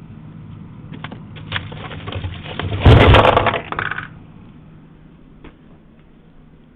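Frozen food packages knocking together and plastic wrap crinkling as a foam tray of wrapped frozen food is pulled out of a freezer: a flurry of clicks and crackles from about a second in, loudest around three seconds, dying away by four.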